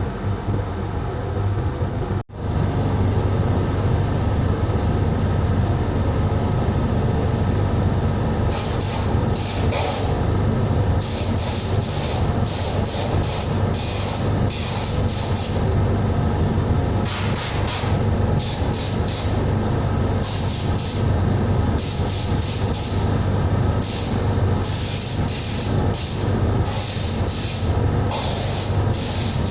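Air compressor running steadily with a low hum, with repeated bursts of high hissing air from a compressed-air gun switched on and off, each lasting a second or two, from about eight seconds in.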